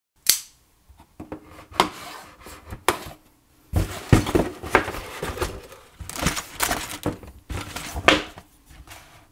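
Cardboard LEGO box being cut open with a folding knife and its flaps pried apart: irregular sharp clicks, scraping and rustling, with a heavier knock about four seconds in.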